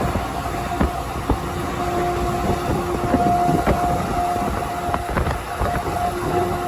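Truck horn sounding in long, steady blasts that start and stop several times, over a rumble of road noise with scattered short knocks.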